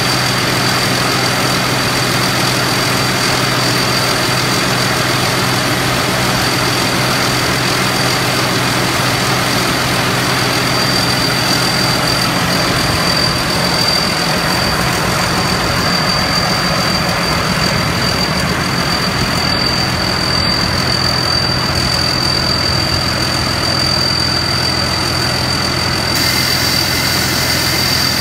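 Diao Thornong 4.0 combine harvester's diesel engine running steadily under a steady high-pitched whine, its low rumble growing fuller about halfway through.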